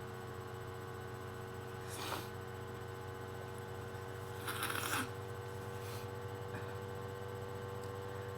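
A person with a heavy cold clearing a congested nose: a short, noisy rush of breath through the nose about two seconds in, and a longer, stronger one around four and a half seconds in.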